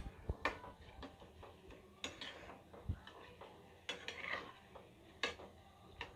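A slotted metal spatula clinking and scraping against a metal kadai in irregular strokes as chilli bajji are turned in hot oil, over a faint sizzle of the frying.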